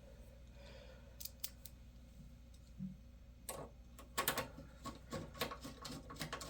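Light clicks and taps of an expansion card and its metal bracket being fitted into a motherboard slot in a Gateway 2000 P5-90 case. A few at first, then coming thick from about halfway.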